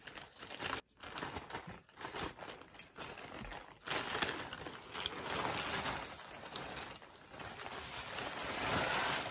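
Scissors snipping through a mailing package in a few short sharp cuts, then the package and its wrapping rustling and crinkling steadily as it is pulled open and handled from about four seconds in.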